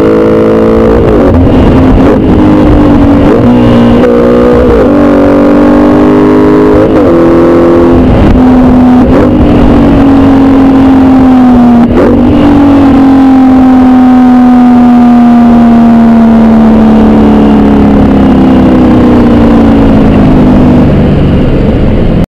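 Audi R8 Spyder's 4.2 FSI V8 exhaust, loud, pitch climbing and dropping back in several quick cycles as the engine is revved or run through gears. From about halfway it holds one long note that slowly falls.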